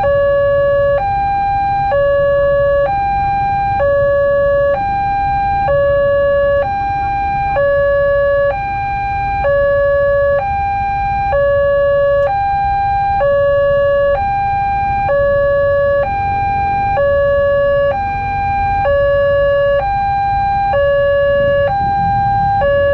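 Railway level-crossing warning alarm sounding its two-tone signal, a lower and a higher tone alternating about once a second, as the crossing is closed for an approaching train. A low rumble of idling motorcycles lies beneath.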